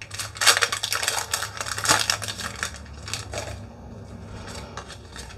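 Foil wrapper of a Pokémon card booster pack crinkling and tearing as it is opened: a dense run of crackles over the first three seconds or so, then quieter rustling as the cards are handled.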